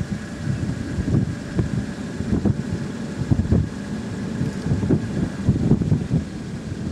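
Gusty wind buffeting the microphone in uneven low rumbling gusts, with a faint steady high whine underneath.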